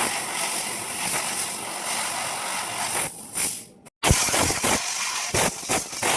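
3000 W fiber laser cutting machine's cutting head hissing as it cuts sheet metal with its jet of assist gas. The hiss runs steadily for about three seconds, breaks off shortly before four seconds in, then comes back in short spurts that start and stop.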